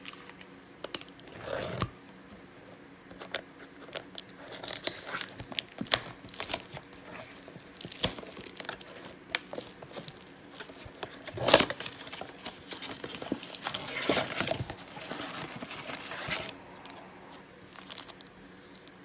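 Plastic shrink wrap being torn off a retail blaster box of trading cards and the box opened, an irregular run of crinkling, tearing and cardboard handling. There is a sharp tear about eleven and a half seconds in and a longer crinkling stretch a little later, then it eases off.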